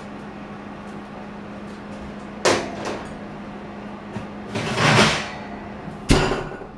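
Kitchen drawer handling: a sharp knock about two and a half seconds in, then a drawer sliding and banging shut about six seconds in, over a steady low hum.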